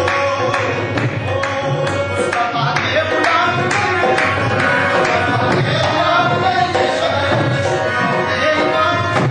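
Qawwali music: harmoniums playing a sustained melody over a fast, steady hand-drum rhythm, with voices singing.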